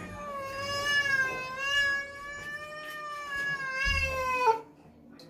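A cat giving one long, drawn-out yowl, wavering slightly, that drops in pitch and breaks off about four and a half seconds in: an angry protest at being held for a bath.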